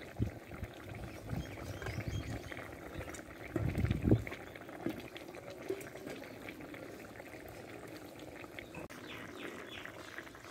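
Thin fish curry boiling in a metal kadai, a steady bubbling simmer. A few dull low knocks come about four seconds in.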